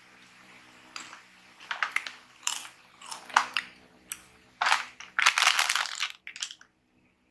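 Plastic snack bag of Chippy corn chips crinkling as it is picked up and handled, with the chips rustling, in irregular bursts; the longest and loudest comes near the end.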